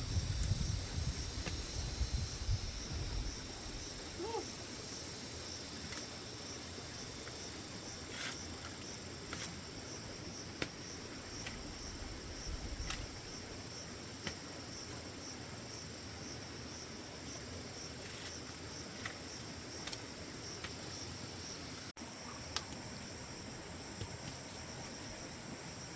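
Steady high-pitched trill of insects, typical of crickets, with scattered soft clicks and rustles and a low rumble in the first few seconds.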